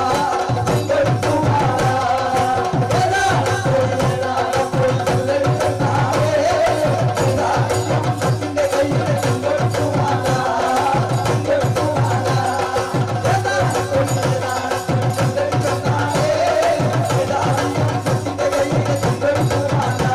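Live song: a man's voice singing over a hand drum that keeps a steady, quick beat, with other singers joining.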